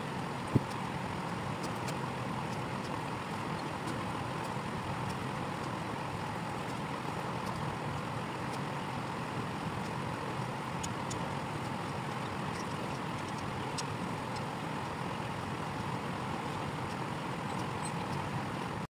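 A steady, unchanging mechanical hum and rumble, with one sharp click about half a second in.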